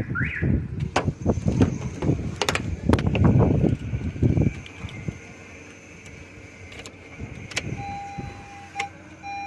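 Handling noise and a few sharp clicks as the driver's door of a 2019 Honda Amaze is opened. Then, about eight seconds in, a steady electronic beeping tone starts, the car's warning chime.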